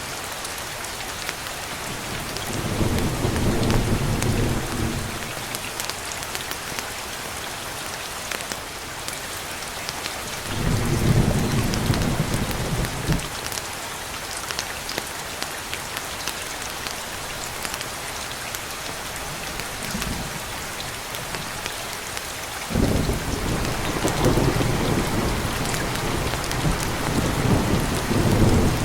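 Steady rain, with low rumbles of thunder rolling in three times: about three seconds in, around eleven seconds in, and again from about twenty-three seconds on.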